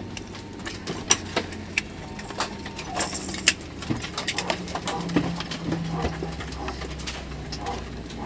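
Airbus A321 cabin during taxi: a steady low engine hum with scattered sharp clicks and clatter from inside the cabin.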